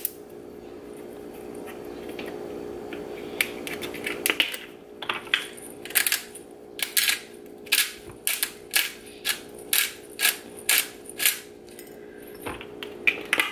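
Black pepper grinder twisted by hand, grinding peppercorns with a steady run of crunchy clicks, about two to three a second. A few looser clicks come first as it is handled.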